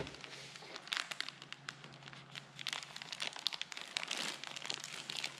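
Grapes being crushed by hand inside a plastic zip-top bag to juice them: the bag crinkles and crackles in quick, irregular bursts.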